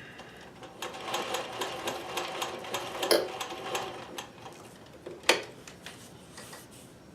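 Consew industrial sewing machine stitching through felt in a short run that starts about a second in and stops after a few seconds, followed by a single sharp click.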